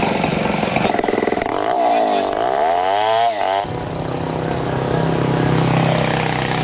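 A small engine running and revving, its pitch sweeping down and back up about two seconds in and breaking off suddenly, followed by a steadier, lower engine hum.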